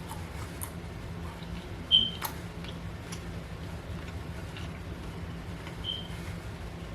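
Quiet chewing of pan-seared lamb chop, with faint mouth clicks and a sharp click a little after two seconds in, over a steady low hum.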